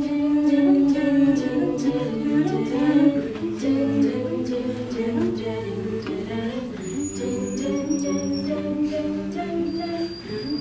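An a cappella vocal group singing held chords in close harmony, the chords changing every second or two.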